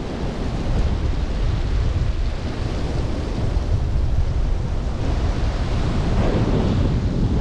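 Strong wind buffeting the microphone with a heavy low rumble, over the rush of wind.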